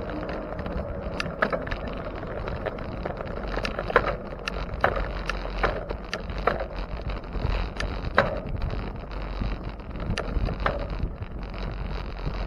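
Riding noise from a bicycle: wind on the microphone and a steady low rumble from the road. Sharp clicks and rattles come at irregular moments, a dozen or so in all.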